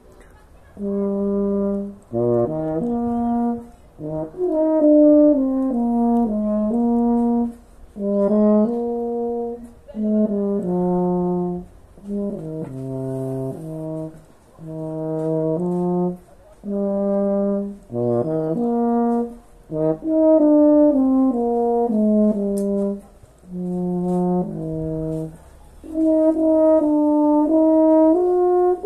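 Solo euphonium playing an unaccompanied melody in short phrases of a few notes each, with brief gaps between phrases.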